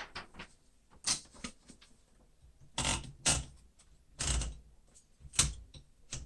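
1970 Smith-Corona Super Sterling manual typewriter being handled while a sheet of paper is fed in: a string of separate swishes and clunks from the paper and the platen and carriage mechanism, with short pauses between them.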